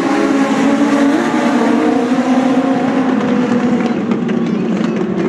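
A pack of Legends race cars, with Yamaha four-cylinder motorcycle engines, passing at speed and drawing away down the straight. Several engines run at high revs together, their notes layered.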